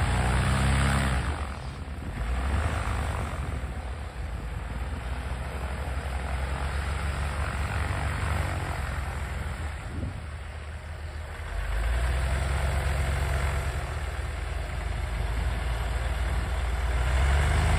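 Inverted Ranger 6-440 six-cylinder aircraft engine of a Fokker D.VII replica running at low power, swelling louder a few times as the throttle is opened slightly.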